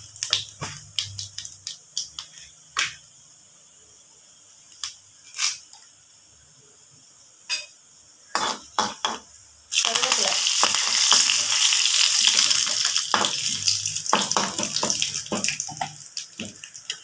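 Mustard seeds and urad dal crackling in hot oil during tempering, with scattered sharp pops. About ten seconds in, a sudden loud sizzle as curry leaves hit the oil, easing off toward the end.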